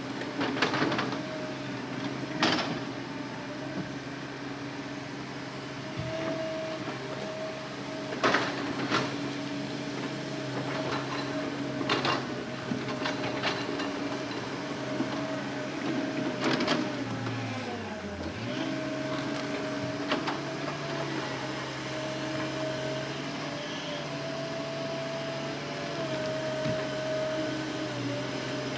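Hitachi Zaxis excavator's diesel engine and hydraulics running steadily, the engine pitch sagging briefly and recovering about two-thirds of the way through as it takes load. Several sharp knocks come through it.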